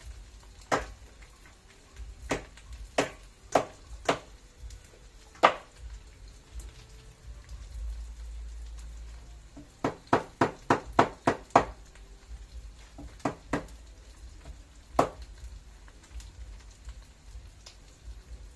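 Sharp knocks of a kitchen tool striking ingredients on a hard surface during food preparation. Single strikes come a second or so apart, then a quick run of about eight strikes about ten seconds in, then a few more.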